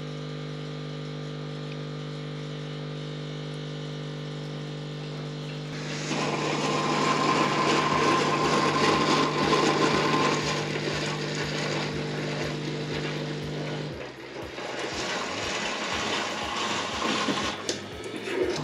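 Siemens EQ500 classic fully automatic coffee machine running its milk-system cleaning. A steady machine hum is followed, about six seconds in, by a loud hiss of hot water and steam forced through the milk tube into the glass, with a regular low pulsing from the pump. The hum stops about fourteen seconds in, and the hiss carries on more lightly until near the end.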